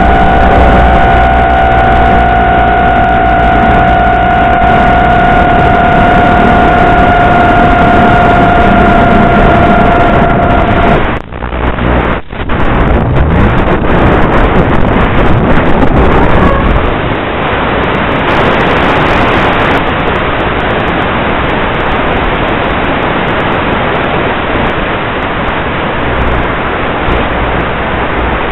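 FPV quadcopter's motors whining at a steady pitch over the hiss of the analog video link. About eleven seconds in the whine stops and the sound drops out twice briefly as the receiver loses signal and the failsafe cuts the motors. After that only a steady static hiss remains.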